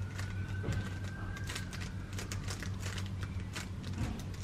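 A GAN 13 MagLev 3x3 speed cube being turned by hand in quick separate moves while a scramble is applied, each turn giving a short plastic click, over a steady low hum.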